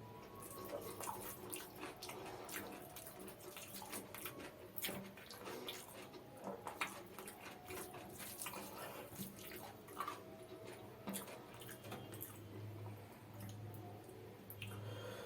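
Close-miked eating sounds of a person eating mutton biryani: many irregular wet clicks and smacks of chewing and mouth movement, with a faint low hum underneath.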